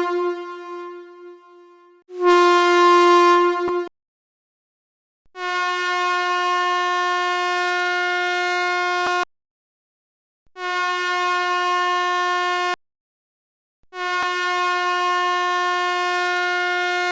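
Stadium air horn sound effect played from a phone app: a series of horn blasts, each held on one steady pitch. A short, very loud blast comes about two seconds in, then three longer blasts with short silent gaps between them, the last still sounding at the end.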